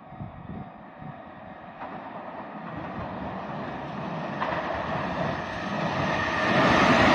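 Freight train approaching, its rumble growing steadily louder and brighter until it is close at the end.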